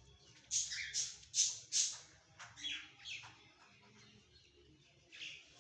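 Short, sharp, high-pitched animal cries in quick succession: several in the first two seconds, a couple more a little later, and one near the end.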